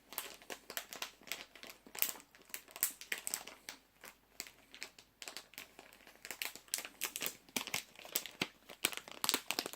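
Plastic snack packaging crinkling as it is handled, in quick irregular crackles.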